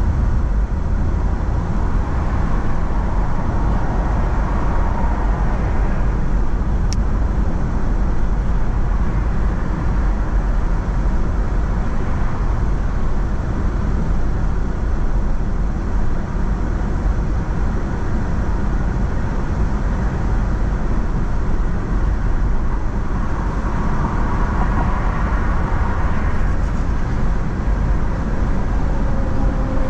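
Steady road noise of a car driving, rumbling low, swelling twice, with one brief click about seven seconds in.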